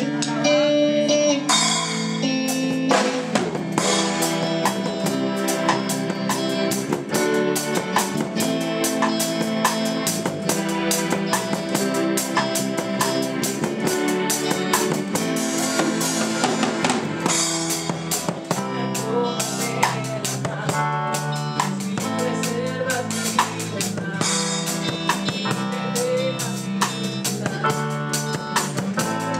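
Music with a full drum kit keeping a steady beat, with guitar and other pitched instruments.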